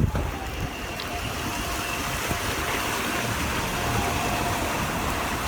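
Steady rushing of a river churning with hailstones and ice, with a faint steady whine above it.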